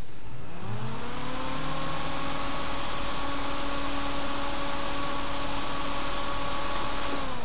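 A 12 V cooling fan salvaged from an OCZ PC power supply, working as a solder fume extractor, spins up over about a second, then runs at a steady whir with a rush of air. Near the end there are two sharp clicks, and the fan's pitch starts to drop as it winds down.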